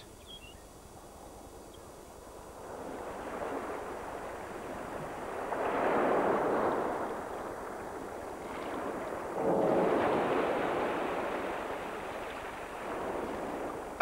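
Sea waves washing, a steady rush of water noise that swells into two louder surges about six and ten seconds in.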